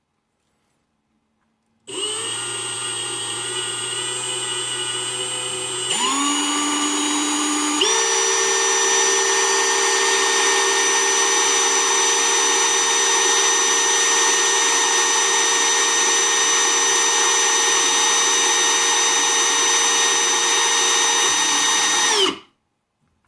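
Power drill running: it starts about two seconds in, speeds up in two steps, runs steadily at full speed, then stops abruptly near the end.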